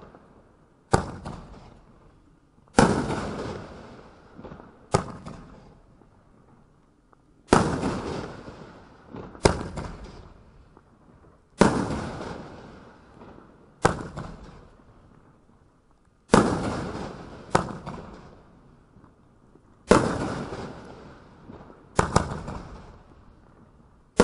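Jekyll & Hyde consumer aerial firework firing a series of shots that burst overhead: about eleven sharp bangs, roughly one every two seconds, each trailing off in a long echoing decay.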